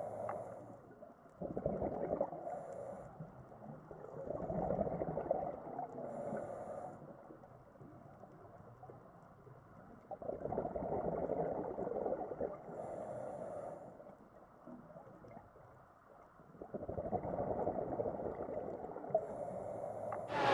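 Scuba diver breathing through a regulator underwater: slow, rhythmic breaths that swell and fade every few seconds, with bubbling on the exhales and brief hissing from the regulator.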